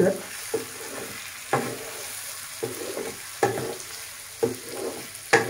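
Chicken drumsticks sizzling in masala in a frying pan as they are stirred, a utensil scraping the pan about once a second, the loudest scrape near the end.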